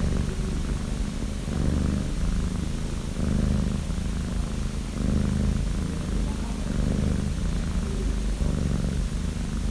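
Five-month-old orange tabby kitten snoring in her sleep: a low rumble that swells with each breath, about once every one and a half to two seconds.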